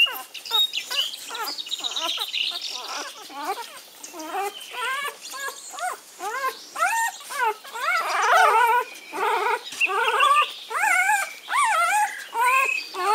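Four-day-old Belgian Malinois puppies squealing and whining: a rapid run of short, high cries that rise and fall in pitch, several pups crying over one another, busiest about eight seconds in, as they are picked up and handled.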